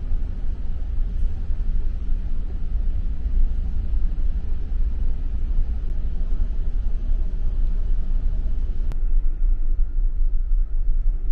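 Steady low rumble of the ferry Shimanto's engines, heard from inside the ship.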